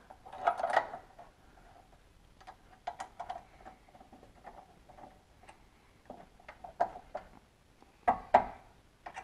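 Scattered small metallic ticks and clicks as bolts and a nut are fitted to a car engine mount from underneath, with a louder clatter about half a second in and again near the end.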